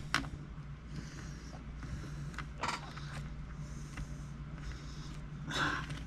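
Small screwdriver working the tiny screws of a laptop's plastic screen housing: faint creaks and clicks of the screws and plastic, with a brief louder rustle near the end.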